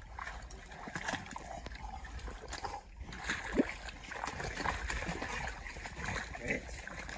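A dog's paws and a person's boots splashing and squelching through shallow muddy water, in irregular small splashes.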